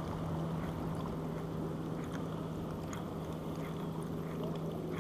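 Steady low hum of an electric bow-mount trolling motor, with water lapping and sloshing against the boat's hull in choppy water.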